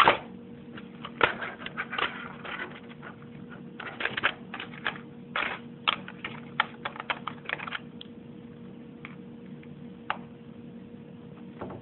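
Irregular small plastic clicks and taps of a screwdriver and fingers working at a laptop's casing and hard drive chassis, trying to make a piece seat. The clicks come thick and fast for about eight seconds, then only a few, over a faint steady hum.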